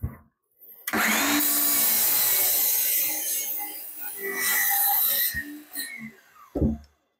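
DeWalt 20V MAX 7-1/4-inch cordless miter saw starting up about a second in and cutting through a wooden board. Its whine falls away as the blade coasts down near the end, followed by a thump.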